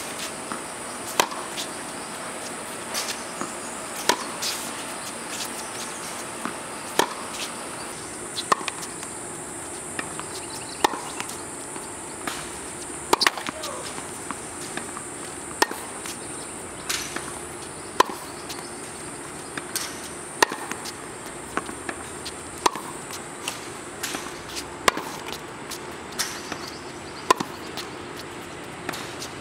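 Tennis balls struck back and forth with rackets in a groundstroke rally: a sharp pop about every second, louder and softer in turn, with ball bounces between, over a steady high hiss.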